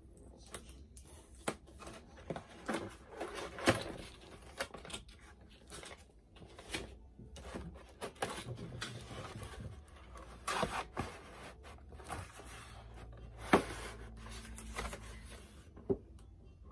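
Cardboard doll box with a plastic window being opened by hand: irregular rustling, scraping and tearing of the flaps and inner tray, with two sharp snaps, one a few seconds in and one near the end.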